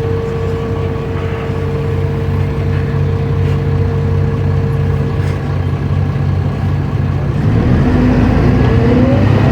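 Mercedes-Benz O500U city bus's diesel engine running steadily with a steady whine. About two seconds before the end it picks up and pulls harder, getting louder, with a rising whine coming in as the bus accelerates.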